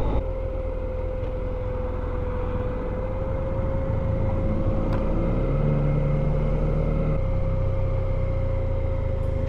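Motorcycle engine and road and wind noise while riding, with a steady high whine throughout; about halfway through the engine note rises as the bike accelerates, then holds steady.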